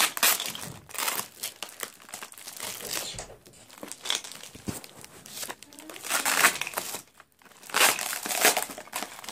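Paper and clear plastic wrapping crinkling in irregular bursts as hands pull the layers off a paper-wrapped ball, loudest about six and eight seconds in.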